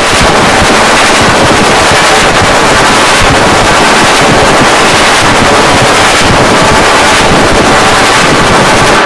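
Harsh, heavily distorted digital audio effect: a loud, dense crackling noise that cuts in abruptly and then holds at a steady level.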